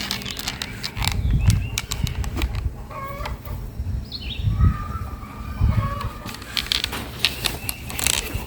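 Hand digging in soil: repeated scrapes and several dull thuds as a digging tool is worked gently into the ground, with chickens clucking in the background.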